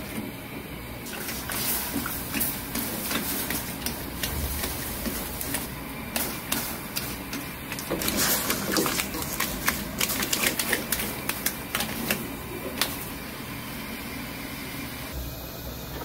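Irregular sharp clicks and crackles over a steady hiss, from a metal pot of live crabs and fan lobsters heating in water on a gas burner. Near the end the clicking stops and a low steady rumble takes over.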